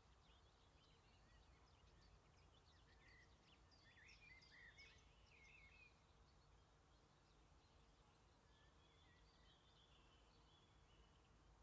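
Near silence: faint outdoor ambience with distant birds chirping, a flurry of quick chirps in the first half and a few more near the end.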